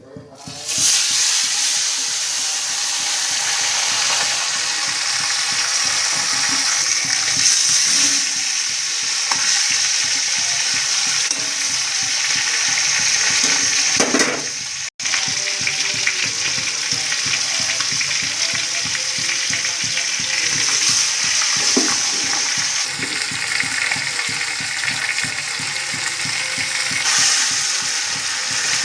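Chicken pieces and masala sizzling steadily in hot oil in a kadhai as chicken curry cooks. The sizzle cuts out for an instant about halfway.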